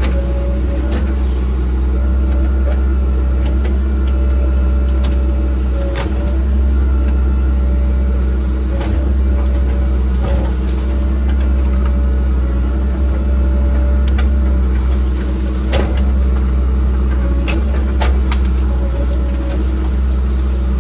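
Land-clearing machine's engine running steadily under load, with scattered sharp cracks and knocks over it.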